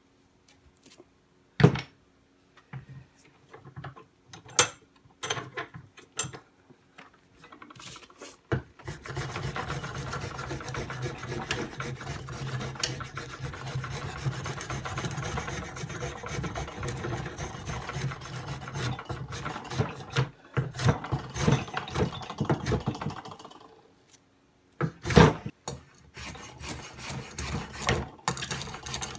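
Hand-held blade shaving curls off a wooden mallet handle clamped in a bench vise: a few knocks of handling, then about fifteen seconds of fast, near-continuous scraping strokes. A couple of loud knocks follow near the end before the strokes start again.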